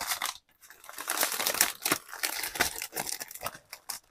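Clear plastic bag crinkling and rustling as it is handled, with a strip of small packets of diamond-painting drills inside. The rustling is irregular, pauses briefly just after the start and thins out near the end.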